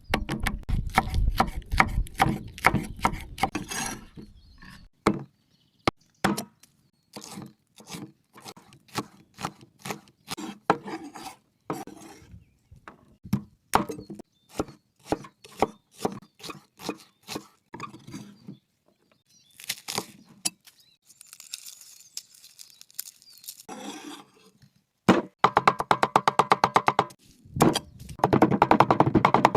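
Cleaver chopping meat on a wooden board. It strikes in irregular knocks, then in a fast, steady run of rapid chops near the end.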